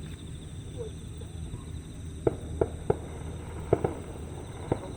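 Fireworks shells bursting at a distance across a lake: about six sharp reports in quick clusters from about halfway through, over a steady high insect trill and a low background hum.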